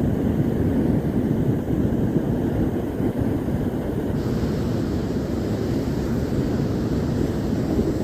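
Ocean surf washing steadily, with wind rumbling on the microphone. A brighter hiss of water comes in about halfway through.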